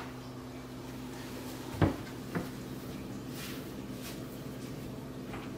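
Two light knocks, the first about two seconds in and a lighter one half a second later, over a steady low hum.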